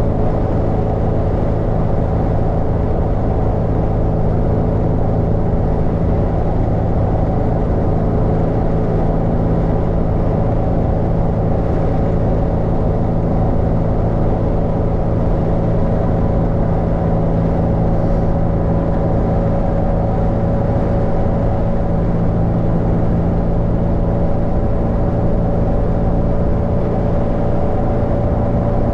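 Steady tyre and road noise with a low engine hum from a car cruising at highway speed, heard inside the cabin. A faint whine creeps slowly higher in pitch.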